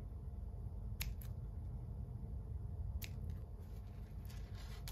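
Scissors snipping: a few short sharp snips, two close together about a second in and another about three seconds in, over faint rustling of hands handling tackle.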